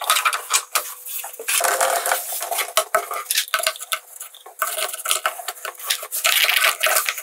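Black plastic adjustable legs on a kitchen base cabinet being turned and fitted by hand: a busy run of plastic clicking and scraping.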